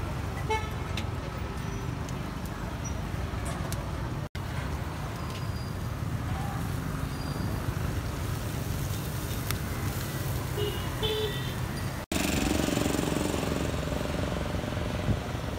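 Street ambience dominated by a steady low rumble of road traffic, with faint voices now and then. The sound drops out briefly twice at edits.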